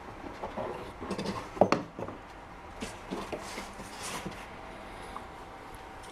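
Handling noise as rod tubes are moved about inside an open hard plastic travel case: scattered light knocks and clicks, the loudest about one and a half seconds in, then rustling and scraping between three and four seconds in.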